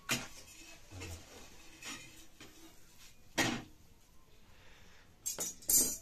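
Metal kitchen utensils knocking and scraping: tongs against an iron griddle as a flatbread is turned, a few separate short clatters with the loudest pair near the end.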